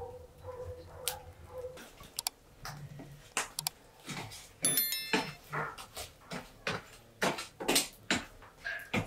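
Irregular sharp clicks and knocks, about two a second, with a brief ringing metallic clink about halfway through. A faint steady tone and a low hum stop about two seconds in.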